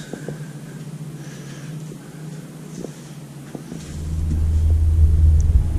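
Low engine rumble of construction machinery, setting in strongly about four seconds in over a steadier, quieter hum, with a few faint knocks.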